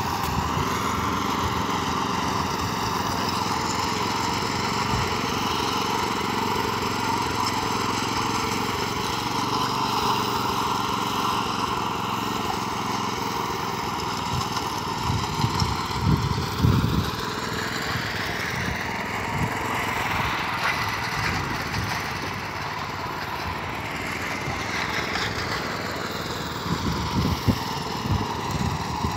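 Small engine of a walk-behind power trowel running steadily as it smooths a fresh concrete slab, its pitch rising and falling in the second half. A few low thumps come about halfway and near the end.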